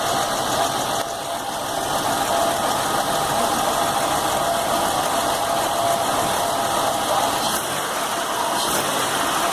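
Chevy Venture's 3.4-litre V6 idling steadily; this is the rough idle, with no fault codes, that the owner is chasing with a fuel pressure regulator test.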